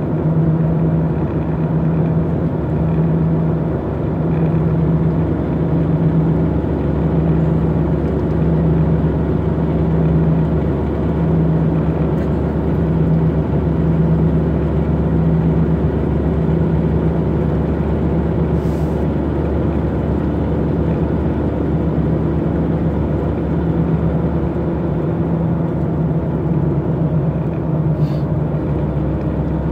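12-valve Cummins 5.9 L inline-six turbo diesel running at a fairly steady speed under way, heard from inside the pickup's cab, with a low drone that pulses evenly.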